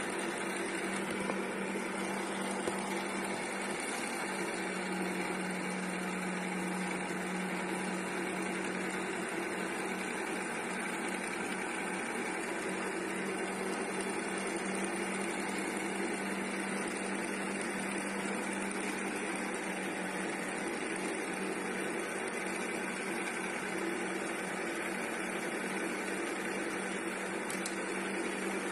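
Electric meat grinder running steadily, its motor humming with a low, even tone as it grinds and extrudes the kubba mixture through the grinding plate.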